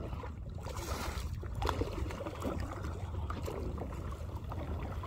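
Water trickling and lapping against a kayak hull as it is towed along, with many small splashes over a steady low rumble.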